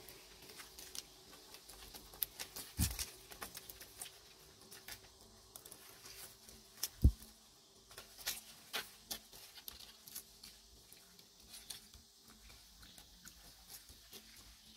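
Macaques shifting and foraging in dry leaf litter: scattered crackles and light clicks, with two louder thumps about three and seven seconds in, over a faint steady hum.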